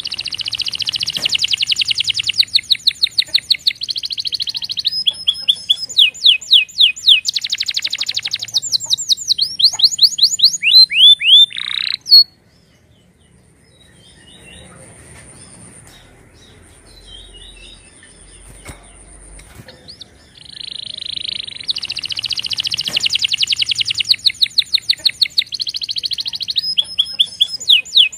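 Domestic canary singing: fast trills and rolls of rapidly repeated notes. The song stops abruptly about twelve seconds in, leaving only faint chirps for several seconds before it starts again.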